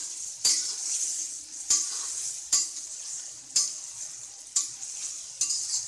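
Crushed onions sizzling steadily as they fry in oil in a metal kadai, while a metal spatula stirs them, scraping and knocking against the pan about once a second.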